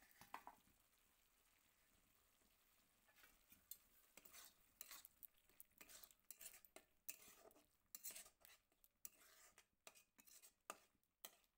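Faint stirring of fried potato cubes through masala paste in a kadai with a metal spatula: a run of quick scrapes and clinks against the pan starting about three seconds in, after a couple of clicks at the very start.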